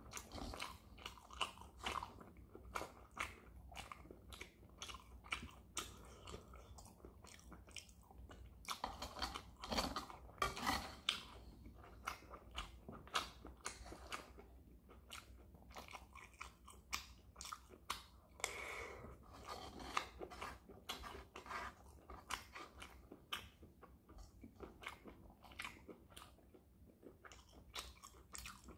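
Close-miked chewing of shrimp fried rice: many small irregular crunches and wet mouth clicks. A spoon scrapes and clicks against the frying pan as more rice is scooped.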